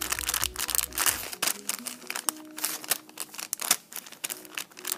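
Clear plastic blister packaging crinkling and crackling as it is handled, in quick irregular clicks.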